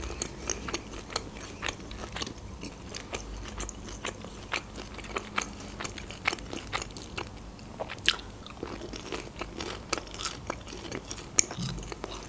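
A person chewing food close to the microphone, with many small sharp clicks and crunches from the mouth.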